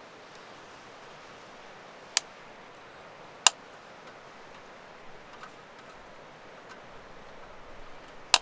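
Steady faint hiss with three sharp clicks: about two seconds in, again a second and a half later, and once more near the end.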